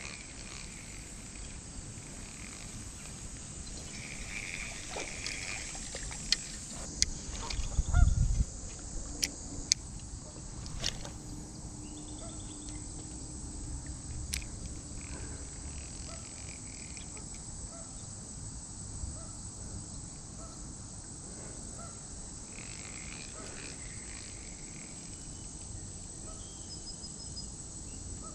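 Steady high-pitched insect buzzing, with a cluster of sharp clicks and knocks about a quarter of the way through, the loudest a dull thump.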